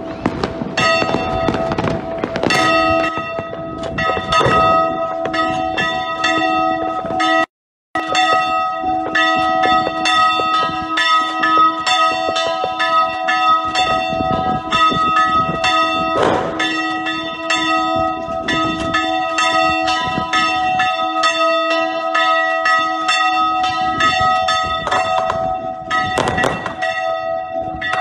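Church bells ringing rapidly in a festive peal, struck several times a second, with the audio cutting out briefly about a quarter of the way in. Fireworks bang now and then underneath the bells.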